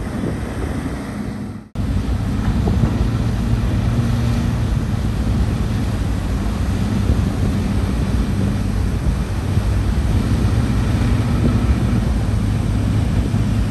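Wind buffeting the microphone over the rush of a pilot boat's wake against a tanker's hull, with a low steady engine drone underneath. The sound cuts out for an instant about two seconds in, then carries on.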